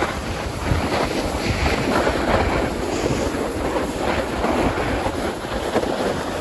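Wind buffeting the microphone, with the rushing scrape of edges sliding over packed snow while riding downhill at speed.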